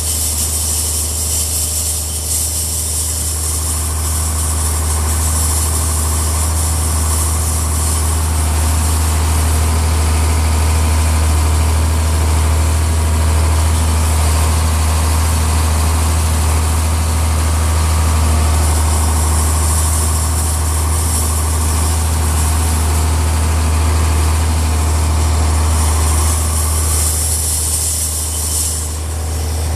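John Deere 5010 tractor engine running steadily at an even speed while pulling a chain-link pasture drag, with a constant low hum.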